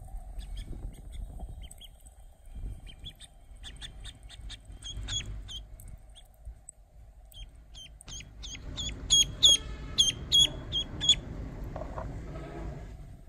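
A domestic duckling peeping with short, high calls. There is a loose run of peeps about four seconds in, then a quicker, louder string of peeps from about eight and a half seconds to eleven seconds.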